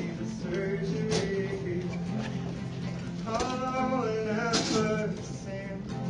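Live song: a singer with guitar accompaniment, a sung phrase standing out from about three seconds in over the steady accompaniment.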